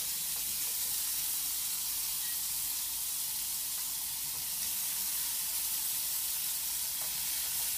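Chicken breasts frying in butter in a frying pan, giving a steady, even sizzle.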